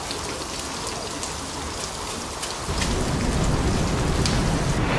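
Rain falling on a water surface, with many single drops striking. A low rumble comes in about two and a half seconds in, and the sound grows louder.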